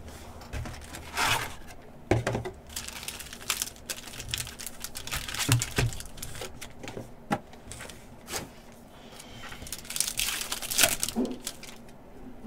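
Trading-card pack wrapper crinkled and torn open by hand, along with cardboard hobby-box and card handling, in irregular rustling bursts, the loudest cluster near the end.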